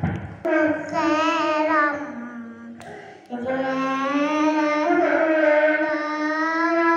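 A young boy singing sholawat, an Islamic devotional song, with no accompaniment and wavering, ornamented notes: one phrase, a short break about three seconds in, then a long held phrase.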